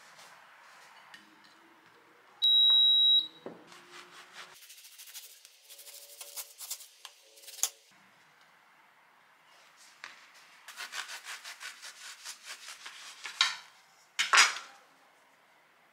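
Serrated bread knife sawing through bagels on a wooden cutting board, in quick rasping strokes in two spells. A short, loud electronic beep sounds about three seconds in, and a sharp knock comes near the end.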